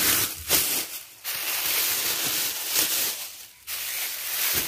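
Plastic grocery bags and packaging rustling and crinkling as items are handled and moved, in stretches broken by two short pauses.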